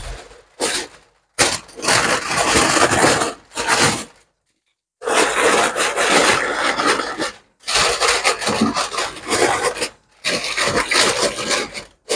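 Aluminium foil crinkling and rustling as it is spread over a cooking pot and pressed down and crimped around the rim by hand. It comes in several stretches separated by brief silences.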